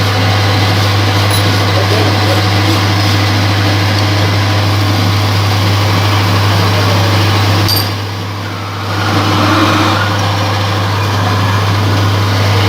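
Lathe running steadily with a strong low hum and a broad mechanical whirr. The sound drops back briefly about eight seconds in, then comes up again.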